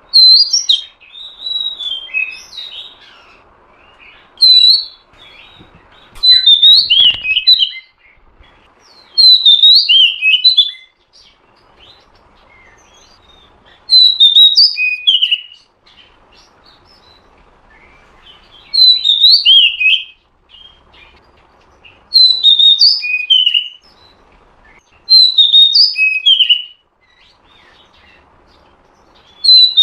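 Female oriental magpie-robin calling in short bursts of quick high chirps, one about every three to four seconds. Calls of this kind are used to rouse male magpie-robins to sing.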